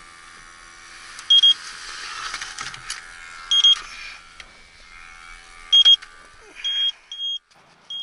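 TIF electronic refrigerant leak detector beeping at a slow, even rate, one high beep about every two seconds, coming quicker near the end, over a steady hum. The slow rate is its searching tick: no clear sign of refrigerant, which matches the tech's remark that he has found no indication of a leak.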